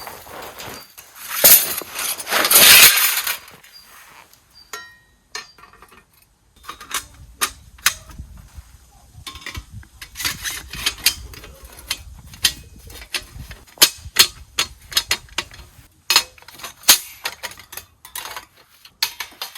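Camp gear being handled: a loud rustling burst near the start, then a long run of irregular clinks and knocks.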